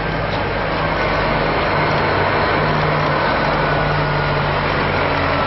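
A coach bus engine running steadily as the bus drives past close by, growing a little louder about a second in.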